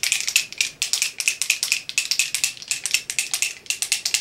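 A CoverFX Illuminating Setting Spray bottle shaken hard by hand, giving a fast, even rattle of about eight knocks a second. The shaking mixes the illuminating spray before use.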